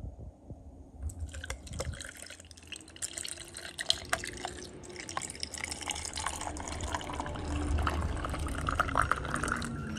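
Creamy strawberry horchata poured in a stream into a glass of ice and sliced strawberries. It starts about a second in, splashing over the ice with many small clicks, and grows louder as the glass fills.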